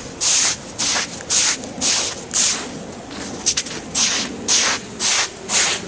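Footsteps crunching on hail-covered, icy ground, about two steps a second, with a brief pause and a couple of sharp clicks midway.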